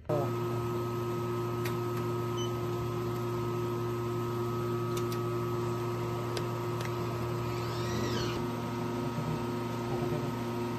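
Welding machine's water chiller switched on, starting abruptly and then running with a steady hum of several even tones. A brief rising-and-falling chirp comes about eight seconds in.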